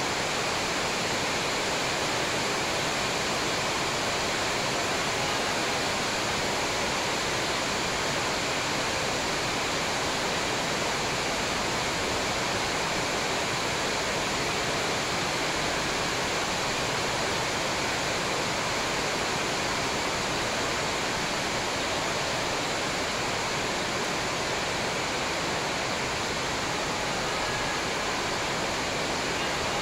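Steady, even rushing noise spread across low and high pitches, with no shuttle hits, shoe squeaks or voices standing out above it.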